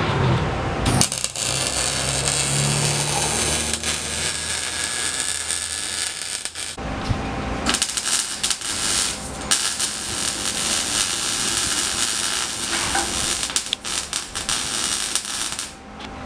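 MIG welder crackling steadily as a bead is run on a car's exhaust pipe, stopping briefly about seven seconds in and then starting again.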